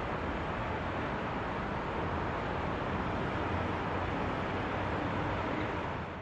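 Steady, even rushing noise with no distinct events, like vehicle or road noise, fading out near the end.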